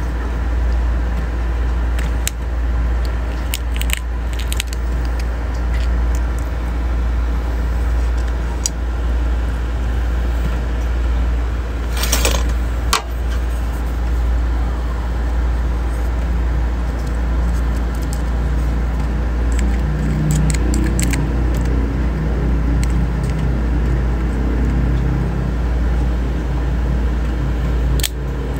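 Small freshwater crab shells clicking and cracking as they are pulled apart by hand, with a louder crunch about twelve seconds in, over a steady low hum.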